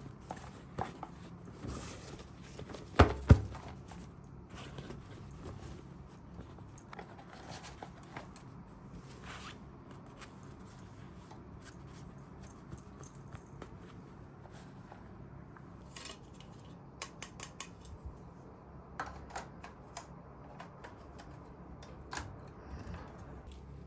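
Small plastic toy pieces and packaging being handled: scattered light clicks and taps, with two louder knocks about three seconds in and quick runs of clicks later on.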